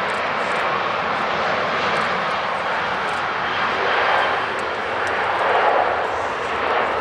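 Airbus A350-941's Rolls-Royce Trent XWB turbofans running at taxi power as the airliner rolls along the taxiway: a steady jet rush that swells slightly about four seconds in and again near six seconds.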